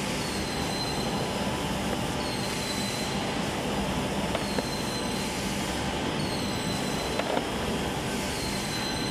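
MST F586HC high-speed edge banding machine running: a steady mechanical drone and hum, with a high whine that comes back about every one and a half seconds and slides slightly down in pitch each time.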